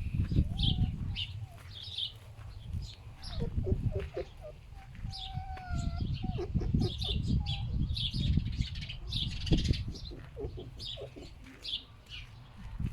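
Foxes making low, pig-like grunts in repeated runs, with small birds chirping and whistling over them.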